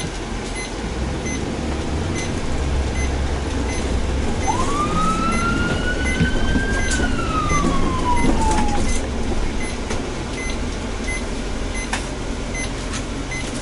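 Ambulance siren wailing once, about four seconds in: its pitch rises for about two seconds, then falls away over the next two. Underneath is the steady low rumble of the moving ambulance, heard from inside.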